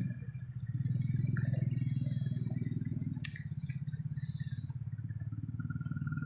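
A motor engine idling steadily with a low, fast-pulsing rumble, and one sharp click about three seconds in.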